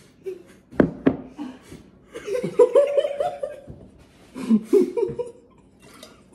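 Two people laughing hard, with sudden sharp outbursts about a second in and longer laughing spells after, one of them spluttering through a mouthful of juice he can't swallow.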